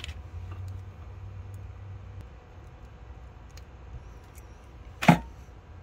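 A hand crimping tool squeezes a blue insulated terminal onto a bundle of ground wires, with one sharp click about five seconds in.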